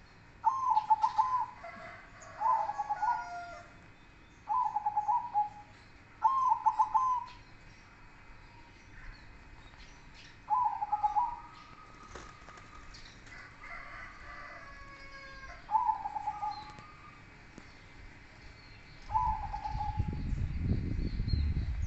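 Caged zebra doves (perkutut) singing their cooing song: about seven phrases, each a quick run of short coo notes, coming every couple of seconds. Small birds chirp faintly in the background, and a low rumble rises over the last few seconds.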